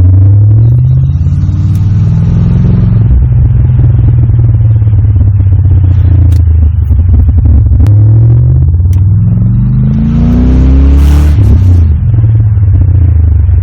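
Holden Calais V8 engine running loud and deep, revving up with a climbing pitch as the car accelerates, once about a second in and again around ten seconds in.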